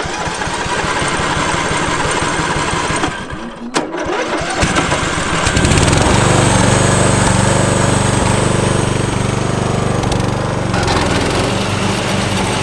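Petrol engine of a riding lawn mower running steadily; about five seconds in it turns louder, with a deep, even hum.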